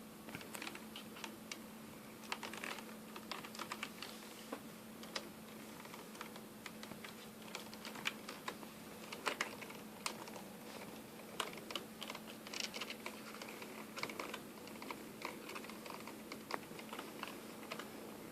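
Computer keyboard keys clicking in irregular clusters and single presses as a kitten walks and paws on the keys.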